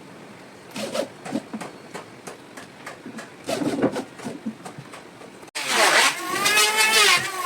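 Scattered knocks and clatter of parts being handled. About five and a half seconds in, after an abrupt cut, a loud electric power tool motor runs: its pitch dips, rises, holds briefly, then begins to wind down near the end.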